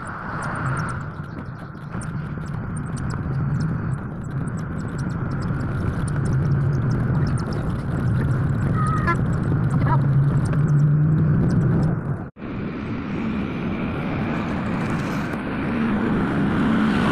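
Steady low drone of a road vehicle's engine and tyre noise while driving along a highway, heard from on board. It breaks off suddenly about twelve seconds in, giving way to a different steady background.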